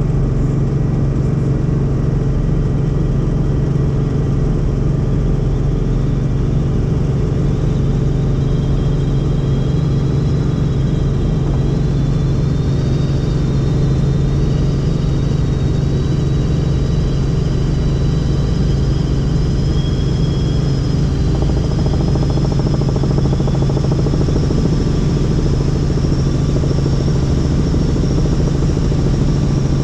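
Helicopter rotor and engine running with a steady, loud drone, and a faint high whine that drifts slowly in pitch.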